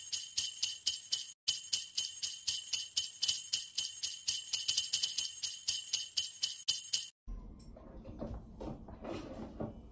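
Sleigh bells jingling in a steady shaking rhythm, about four shakes a second, cutting off suddenly about seven seconds in; faint room noise follows.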